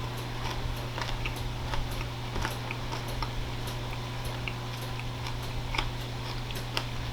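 A person chewing a mouthful of raw vegetables and sausage close to the microphone: irregular wet mouth clicks and smacks, over a steady low electrical hum.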